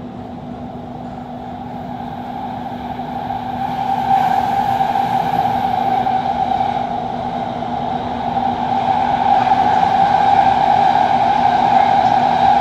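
Doha Metro train running through a tunnel: a steady hum with a whine above it, growing louder over the first few seconds and louder again near the end.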